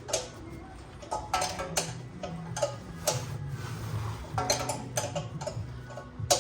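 Hand ratchet clicking in short irregular runs as a bolt is worked loose, with steady low background music underneath.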